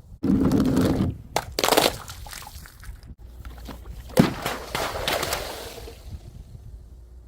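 Glass bottles smashing: a long crash in the first second, further breaks just under two seconds in, and a sharp smash about four seconds in, each followed by pieces scattering and settling.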